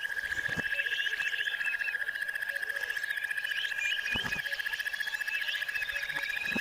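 A continuous, rapid, even-pitched trill from a calling animal, with birds chirping over it and a few soft knocks.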